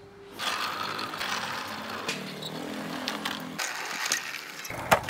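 Wooden model car's wheels rolling over rough concrete: a steady gritty rolling noise that starts about half a second in, with a few sharp clicks near the end.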